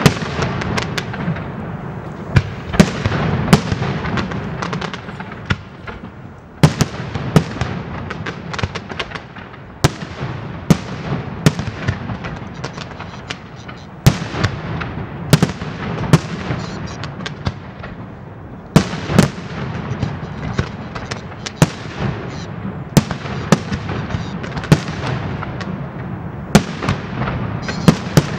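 Pirotecnia Martí's aerial fireworks display: shells bursting in a dense, irregular barrage of sharp bangs, often one to three a second, over a continuous noisy din of further bursts.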